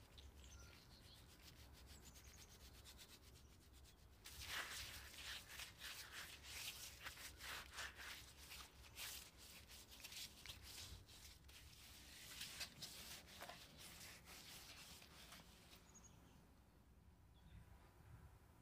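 Gloved hands rubbing a dry spice mix into raw lamb shoulders on a metal tray: a run of quick, soft rubbing strokes that starts about four seconds in and dies away near the end.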